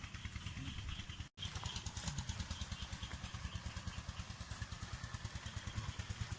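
A small engine idling with a steady, rapid low putter, broken by a brief gap about a second in.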